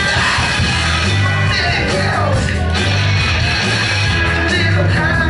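Live rock band playing loud in a club: electric bass, electric guitar and drums, with a singer's voice over the top.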